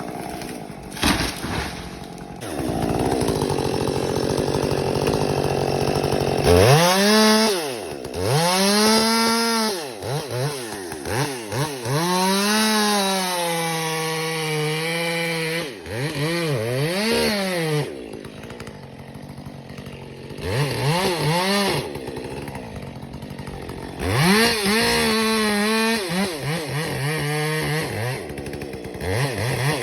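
Chainsaw engine revving up and dropping back again and again, with a lower, quieter idle stretch partway through before it revs up once more, as when cutting into a dead fir.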